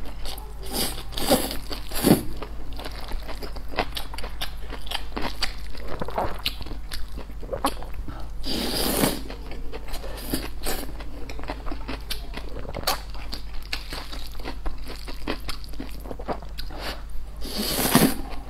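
Close-miked eating: wet chewing and crunching of wide flat noodles and bok choy, with many short mouth clicks. Longer slurps as noodles are drawn in come about halfway through and again near the end.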